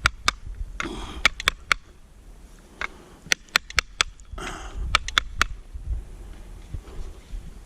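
Sharp plastic clicks and light scraping from handling the opened air filter and cover of a Husqvarna 572XP chainsaw, with two short breathy hisses, about a second in and near the middle, over a low wind rumble.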